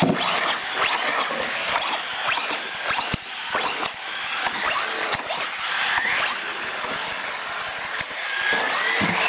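Several radio-controlled cars' electric motors and gears whining as they race, the pitch rising and falling with the throttle, mixed with scattered clicks and knocks of the cars bumping into one another and the posts.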